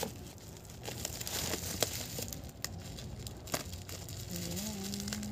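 Bubble-wrap packaging crinkling and tearing as it is picked open by hand, with many sharp crackles.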